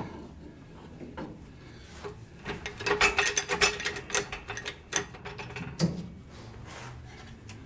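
Hand tools working on a truck's front leaf spring hardware: a quick run of metallic clicks in the middle, with a couple of sharper metal knocks after it.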